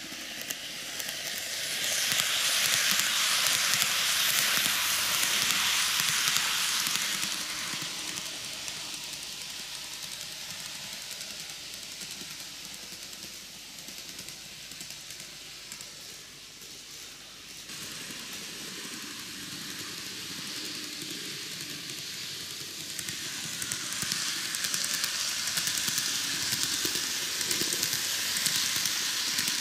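TOMIX N-gauge Kintetsu 80000 series Hinotori model train running on its track: a steady hiss of metal wheels rolling on the rails and the motor running. It is loud for a few seconds near the start, fades through the middle, and grows again near the end as the train comes close.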